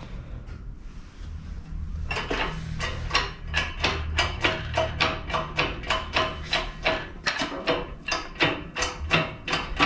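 A hydraulic shop press at work as its ram comes down to press the pin, bearing and spacer stack into a plate. About two seconds in, a quick run of sharp metallic clicks starts, roughly four a second.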